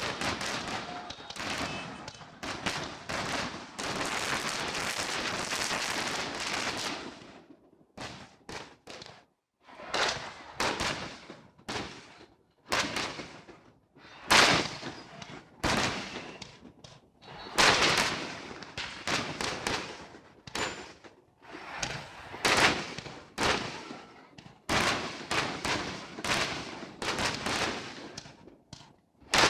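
Fireworks going off: a dense, unbroken run of crackling bangs for about the first seven seconds, then separate booms and bangs, one or two a second.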